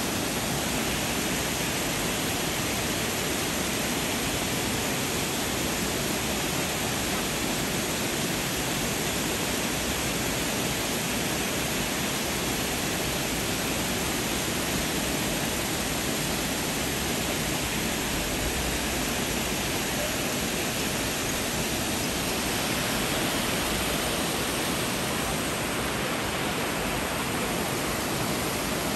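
Steady rushing of white water pouring over a river weir, unchanging throughout.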